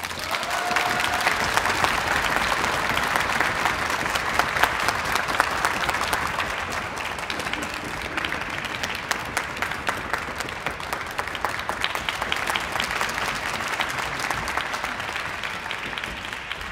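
Concert audience applauding after the final chord, dense steady clapping that eases slightly over time.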